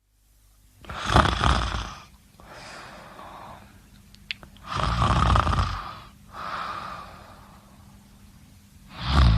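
A sleeping person snoring: three loud snores on the breath in, about four seconds apart, the first two each followed by a quieter breath out. A brief click sounds a little after four seconds in.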